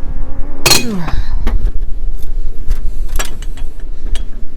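A small motor, likely a power tool on a car's lug nuts, whirs and stops with a sharp, loud clank less than a second in, its pitch falling as it winds down. Several metallic clicks and clinks follow, over a steady low rumble.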